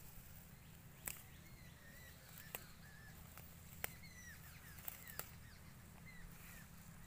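Very faint outdoor ambience with a handful of short, sharp snaps as kulekhara (Hygrophila) stems are plucked by hand, and faint bird chirps in the background.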